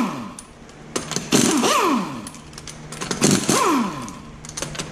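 Impact wrench spinning lug nuts off a car's rear wheel in short bursts: two full bursts about two seconds apart, with the tail of one at the start and another beginning at the end. Each is a rattling whir that rises in pitch and then winds down.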